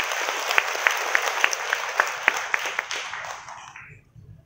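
Audience applauding, a few sharp individual claps standing out over the dense clapping, dying away about three and a half seconds in.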